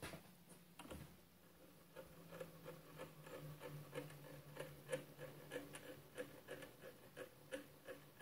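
Faint, regular mechanical ticking, about three a second from around two seconds in, over a low steady hum. It comes from the mini lathe's mechanism being worked by hand during a dial-test-indicator runout check.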